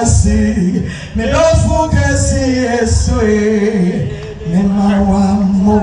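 A woman singing into a microphone, a slow melody of gliding and held notes, ending on a long held note.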